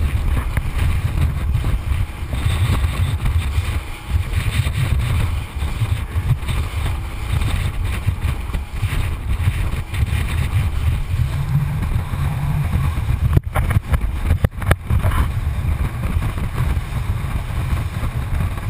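Rigid inflatable boat running at speed: a steady low rumble of engine, hull and rushing water, buffeted by wind on a microphone inside a waterproof camera housing. A few brief sharp breaks in the sound come about two-thirds of the way through.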